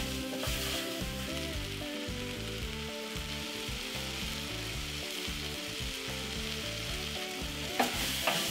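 Sliced onions, aromatics, spices and tomato paste sizzling in hot oil in a stainless steel saucepan while being stirred with a wooden spoon. It is a steady frying hiss.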